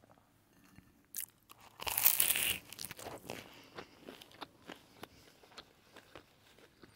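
Someone biting into something crunchy close to the microphone, with the loudest crunch about two seconds in, then scattered softer chewing clicks.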